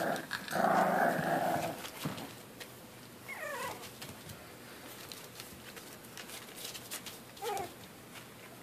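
Nearly four-week-old boxer puppies at play: one growls for the first two seconds, then a short wavering whine comes a little past three seconds and another near the end, over light scuffling of paws.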